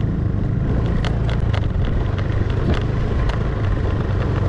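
Motor scooter's engine running steadily while riding a rutted dirt track, with a few short knocks and rattles scattered through it.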